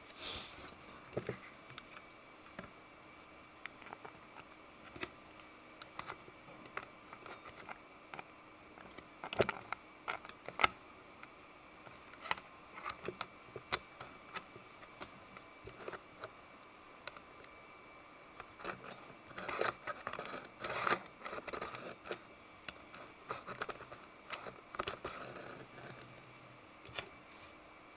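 Hard 3D-printed plastic parts of a miniature table saw being handled and fitted together, with scattered clicks and taps. A denser stretch of rubbing and scraping comes about two thirds of the way through.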